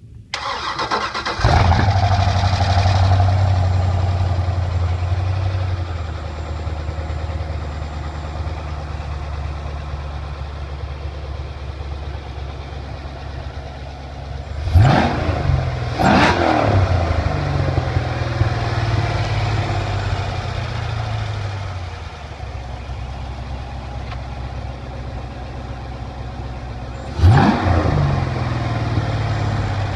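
Freshly built GM LS V8 with open exhaust manifolds and no pipes, cranking briefly and firing up on its first start about a second and a half in. It runs at a fast idle that slowly settles to a steady idle. Two quick throttle blips come about halfway through, and another near the end.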